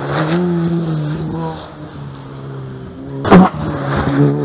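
Rally car engines running as two cars in turn take a tarmac bend, one engine note following another. A single loud, sharp bang cracks out about three seconds in.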